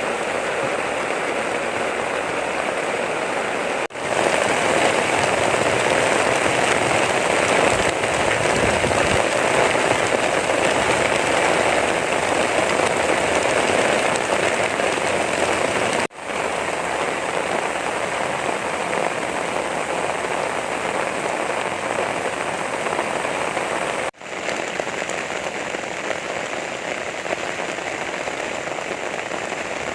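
Heavy rain pouring steadily, a dense even hiss that is heaviest in the first half, with three brief dropouts where the sound cuts and resumes.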